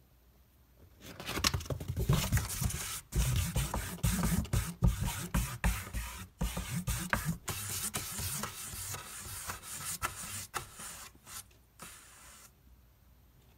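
A cat clawing at the inside wall of a cardboard box: rapid scratching and scraping of claws on cardboard, with dull knocks against the box. It starts about a second in and stops near the end.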